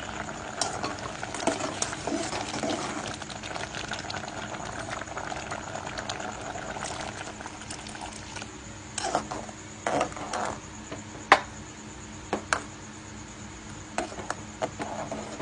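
Rice porridge simmering and bubbling in a metal pot on a gas stove, then a spoon stirring it and clinking sharply against the pot several times in the second half.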